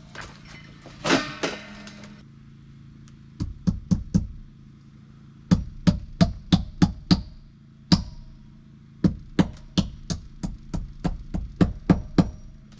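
Repeated sharp knocks in short bursts of several strikes, about three a second, with brief pauses between the bursts.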